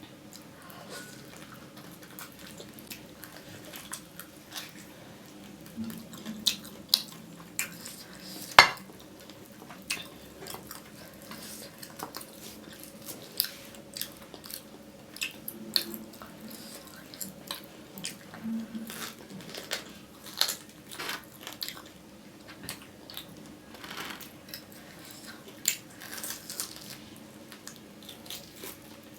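Close-up eating sounds: chewing and mouth noises mixed with scattered clicks and clinks of a plate and utensils, with one sharp, loud clink about eight and a half seconds in. A faint steady hum runs underneath.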